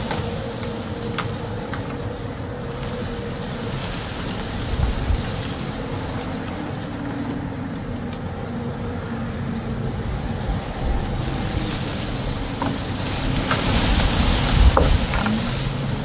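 Storm wind gusting, with a distant tornado siren's tone wavering faintly underneath it, fading in and out. Wind and rain noise swell about three-quarters of the way through.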